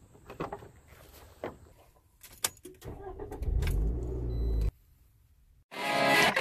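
Car door handle clicks and a thud, keys rattling, then a Scion hatchback's engine cranking and catching into a low idle that cuts off abruptly. Guitar music starts near the end.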